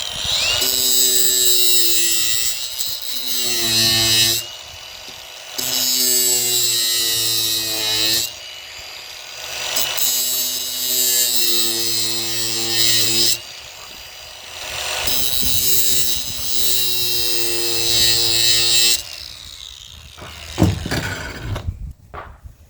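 Handheld electric power tool run in four bursts of a few seconds each, a high motor whine over a harsh hiss, used while breaking down a scrap electric motor. A sharp knock near the end.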